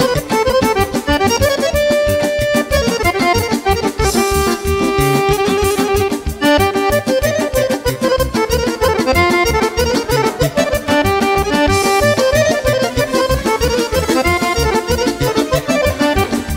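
Live band playing a fast instrumental: accordion leading the melody with violin, over a fast, steady beat.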